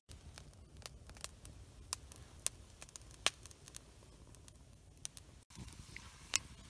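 Campfire crackling: irregular sharp pops and clicks, a few a second, over a steady low rumble. The sound breaks off briefly about five and a half seconds in and then carries on.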